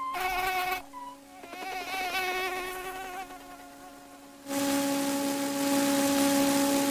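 Cartoon insect sound effects: a steady wing buzz under warbling, chirpy squeaks from two fuzzy flies. About four and a half seconds in, a much louder, fuller buzz starts as a ladybird flies.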